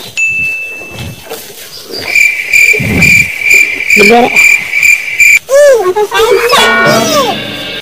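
High insect-like chirping, pulsing about three times a second for a few seconds, after a short steady high whine at the start. Near the end come several quick rising and falling whistling glides.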